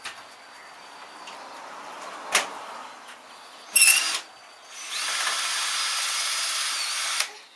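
Cordless drill-driver running on a screw: a steady whir for about two and a half seconds that stops abruptly near the end, after a click about two seconds in and a short burst about four seconds in.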